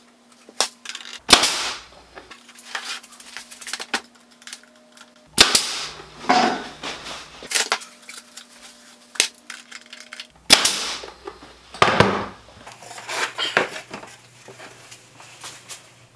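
Workshop handling noise: four sharp, loud knocks or snaps, each with a short ringing tail, among lighter clicks and clatter as parts of a wooden shelf rack are handled.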